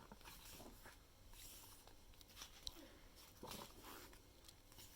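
Near silence with faint paper rustles and a few soft taps: a photobook album being handled and its pages turned.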